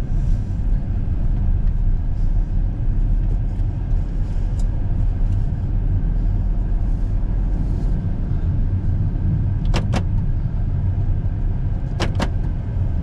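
A car running: a steady low rumble of engine and road noise, with two short sharp sounds about two seconds apart near the end.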